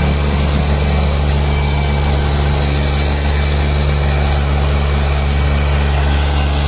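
Fiat 480 tractor's diesel engine running steadily under heavy load as it drags a disc harrow through deep soil.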